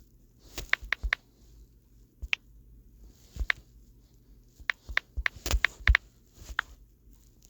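About a dozen light, irregular taps and clicks of fingers tapping on a phone touchscreen while typing text.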